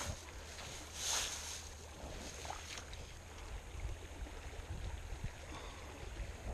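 Small creek flowing steadily over riffles, with a brief rustle about a second in.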